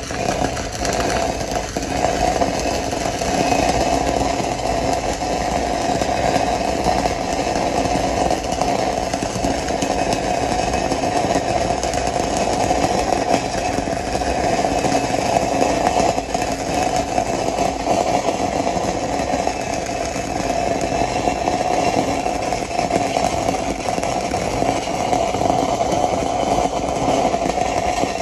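Stick-welding arc of a 3/32-inch 6010 electrode at about 70 amps, running a root pass in the open root of a bevelled steel pipe joint. It is a continuous, even crackle with a steady mid-pitched tone running through it.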